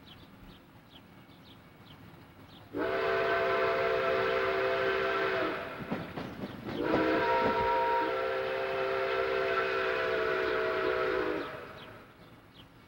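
Chesapeake and Ohio 2765's steam whistle blowing two long blasts, several notes at once, the first about three seconds long and the second about four and a half, with a short break between them.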